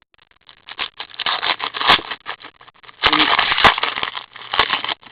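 Hockey card packs and cards being handled: an irregular crinkling rustle of wrapper and card stock with sharp clicks, louder in the second half.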